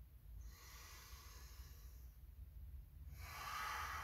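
Slow, calm breathing through the nose after a breath-hold: two long, soft breaths, the second one louder.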